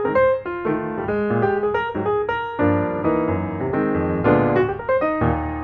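Background piano music, with notes and chords played in quick succession.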